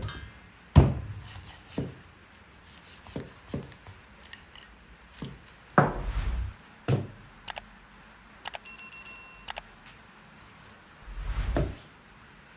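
Thuds and knocks of a large sturgeon head being moved and set down in a wide basin, the loudest a little under a second in and a heavier low thud near the end. About nine seconds in comes a quick run of high rings.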